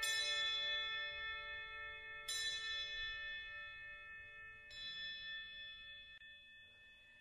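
A bell tolling slowly: three strikes about two and a half seconds apart, each ringing out and fading, the later ones quieter.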